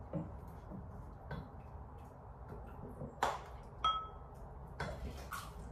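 Wooden spoon scooping cooked rice from a pot into a bowl: a few scattered soft taps and knocks, one of which leaves a short ringing ping.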